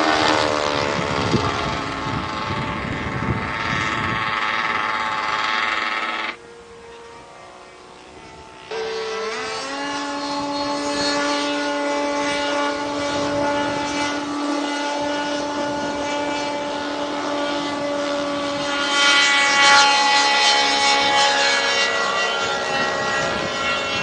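RC model airplane engine running with a steady pitch, the pitch falling in the first second as it passes. About six seconds in it drops sharply to a faint hum. A couple of seconds later it comes back loud, climbs briefly in pitch and holds steady, growing a little louder near the end.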